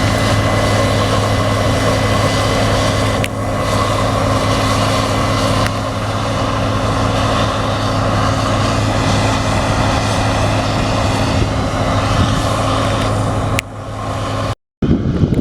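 Case IH Axial-Flow combine harvester running steadily while threshing wheat, its diesel engine and machinery giving a loud, even drone with a deep hum. The sound cuts out about a second before the end, and gusts of wind on the microphone follow.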